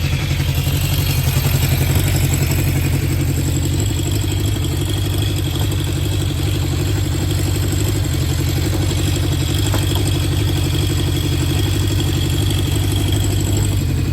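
Honda CB750 Four K3's air-cooled inline-four idling steadily through mufflers with modified HM341 baffles. It runs with an even pulse and no carburettor 'sneeze' (spit-back through the carbs). The float levels have been reset, with #3's high fuel level lowered, and the intake insulators checked for air leaks.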